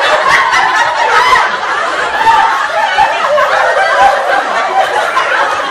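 Several people laughing and shrieking at once, their voices overlapping without a break.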